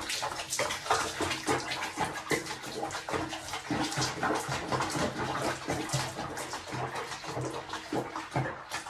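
Water splashing and sloshing in a small basin around a cat being bathed, as a run of many small, irregular splashes.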